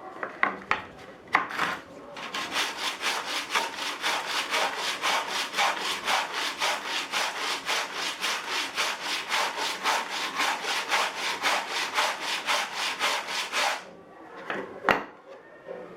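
Sandpaper on a hand sanding block scrubbed back and forth over wood in fast, even strokes, about four a second, for some eleven seconds. It is framed by a few light knocks as the block is set down, and one sharp knock near the end after the sanding stops.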